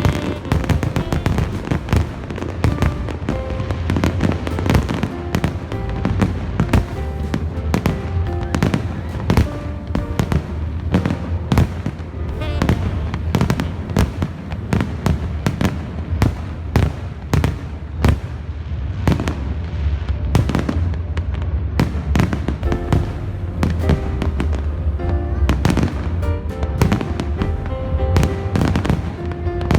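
Fireworks display in a continuous barrage, many sharp bangs and crackles in quick succession, over accompanying music with a steady low rumble.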